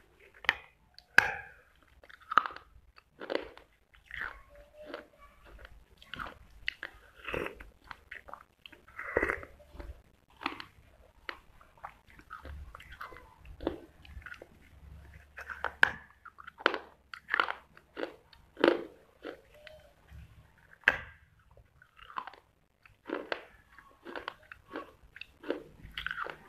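A person biting and chewing hard pieces of baked clay close to the microphone: repeated sharp crunches, one or two a second, with grinding chews in between.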